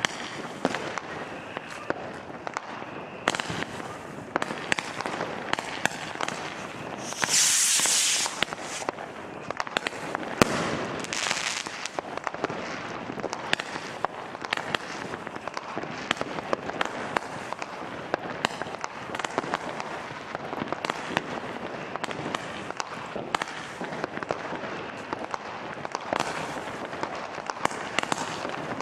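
Fireworks going off continuously: a ground-level firework battery fires shot after shot, with dense crackling and bangs. A loud hissing burst comes about seven seconds in, and a sharp, loud bang a few seconds later.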